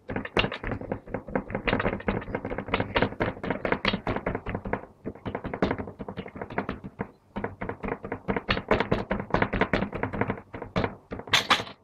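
A hand patting and pressing a ball of yeasted qurs dough flat on a wooden tabletop: rapid, repeated soft taps, several a second, with a couple of short pauses.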